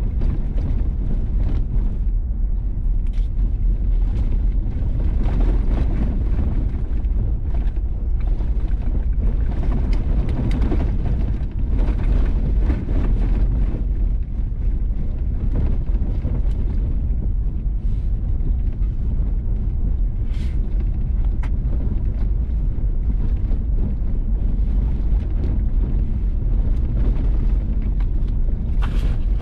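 Vehicle driving on a gravel road: a steady low rumble of tyres and engine with wind noise on the microphone, and a few faint ticks here and there.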